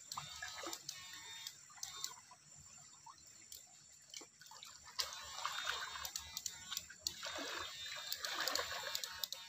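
Shallow stream water sloshing and splashing around a person wading with electrofishing poles, louder from about five seconds in, with scattered short clicks.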